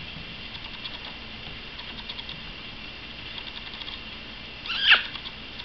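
Light, rapid pattering and clicking of paws and claws as a puppy and a cat wrestle on a rug, with one short animal cry about five seconds in.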